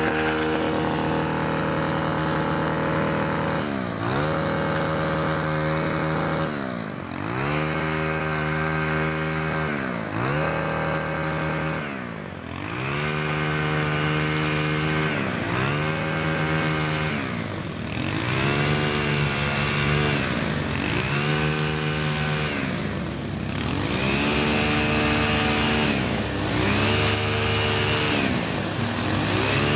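Gas string trimmer's small two-stroke engine running at high revs while trimming grass, its speed dropping and climbing back up every couple of seconds.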